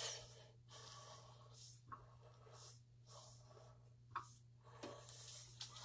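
Near silence: room tone with a steady low hum and a few faint, brief handling rustles and ticks.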